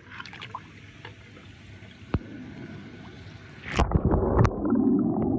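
A few light clicks of a die-cast toy van on the stone pool edge. About four seconds in, a sudden splash, then muffled, bubbling water heard from under the surface as the toy sinks into the pool.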